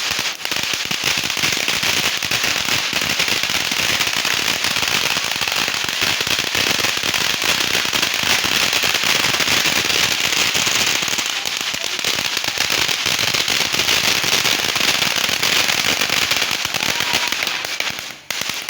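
Fireworks crackling: a dense, continuous rattle of rapid small pops with no break, which stops suddenly near the end.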